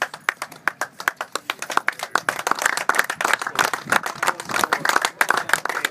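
A small group of people clapping their hands: a steady run of separate sharp claps.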